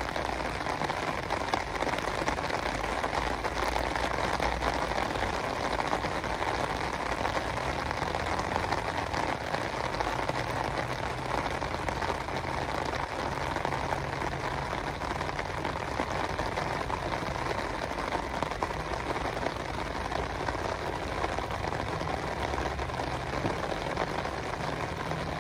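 Steady rain falling on open lake water, countless drops striking the surface.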